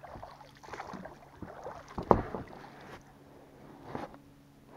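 Quiet scattered knocks and rustling, with one sharper, louder knock about two seconds in.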